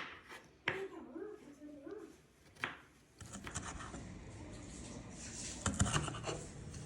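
Handling noise: a few sharp clicks, then scratching and rustling with scattered knocks. A short wavering pitched sound comes about a second in.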